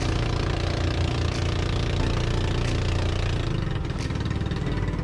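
Motor of a bangka outrigger fishing boat running steadily, under a hiss of wind and water; its note shifts a little about three and a half seconds in.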